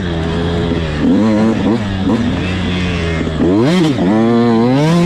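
85cc two-stroke dirt bike engine running and revving, its pitch rising and falling as the throttle is worked, with a sharp rev up and back down about three and a half seconds in.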